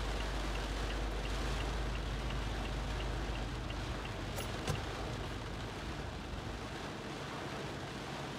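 Heavy rain drumming steadily on the car's roof and windscreen, with a low hum that drops away about halfway. A faint rapid ticking, about three ticks a second, runs through the first half, and there is a single sharp click near the middle.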